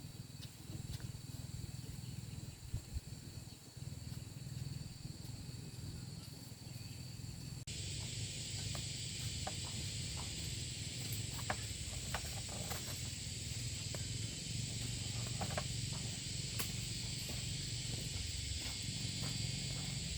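Insects shrilling steadily in high, unbroken tones, becoming a fuller, denser drone after a cut about eight seconds in, over a low rumble with scattered light clicks.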